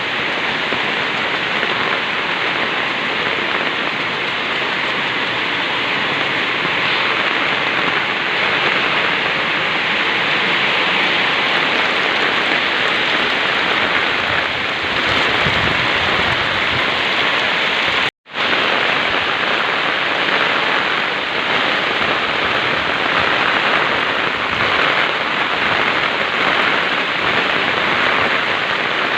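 Heavy rain pouring down steadily, a dense even hiss. It cuts out for a split second about two-thirds of the way through, then carries on.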